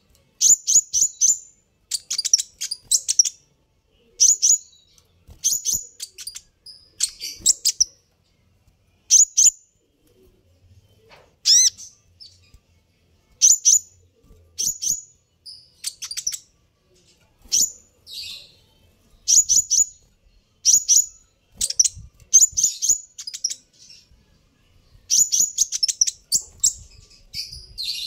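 Sunbird (kolibri ninja, Van Hasselt's sunbird) calling: high, thin, sharply falling chirps, often in quick runs of three or four, repeated about every second with short pauses.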